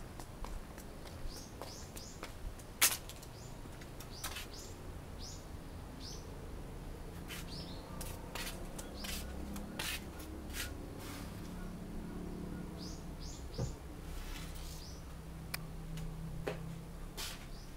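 Small birds chirping in short rising calls, often two or three in quick succession, over scattered clicks and knocks of footsteps and handling; one sharp click about three seconds in is the loudest sound.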